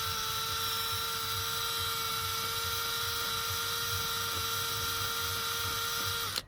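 Electric drill with a 2.5 mm bit running at a steady speed, a steady whine, as the bit is worked back and forth to widen a hole in seatbelt webbing. It stops abruptly just before the end.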